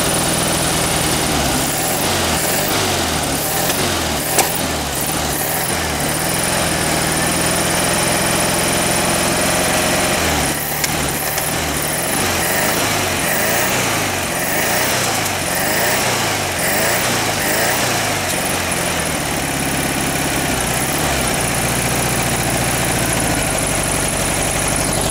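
1968 VW Beetle's air-cooled flat-four engine running rough on three cylinders, one cylinder misfiring. Its speed rises and falls again and again as the throttle is worked by hand, with a single sharp tick about four seconds in.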